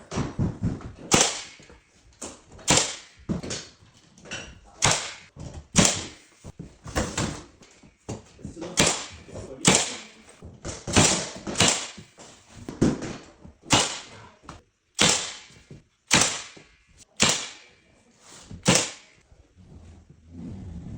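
Door molding being nailed: a run of sharp, loud bangs about once a second, unevenly spaced, each with a short ringing tail.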